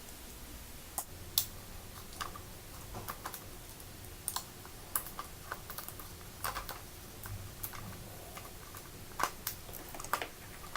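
Irregular light clicks and taps of hard plastic packaging being handled, with a few sharper clicks about a second and a half in and near the end.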